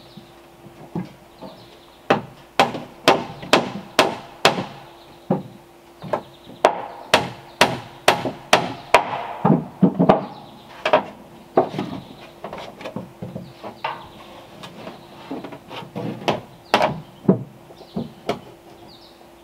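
Sharp wooden knocks from rustic pole balusters being worked on a plank deck. They come in a quick run of about two a second from about two seconds in, then thin out to scattered taps after about twelve seconds.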